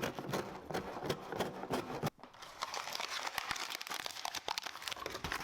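Packaging being handled during an unboxing: continuous crinkling and crackling, with a brief pause about two seconds in.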